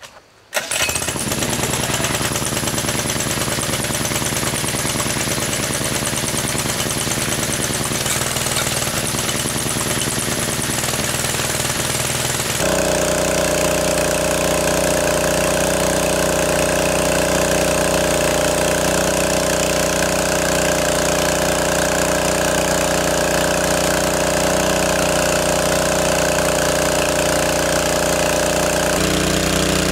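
A small engine-driven water pump running steadily with a rapid, hard engine beat; it starts suddenly about half a second in. Its sound changes abruptly about halfway through, when a steady held tone comes in.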